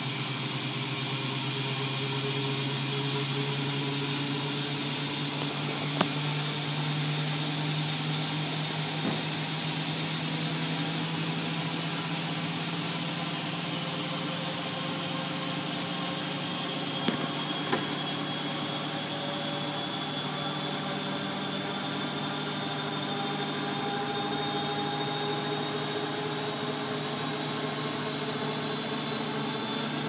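Bosch WFF2000 washing machine spinning: steady motor whine and drum rumble, with high tones climbing slowly in pitch as the drum speeds up. A few brief ticks about six seconds in and again around seventeen seconds.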